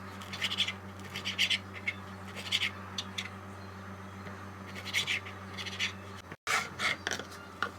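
A kitchen utensil scraping and stirring in a bowl or pan in short irregular strokes, over a steady low hum. The sound drops out briefly near the end.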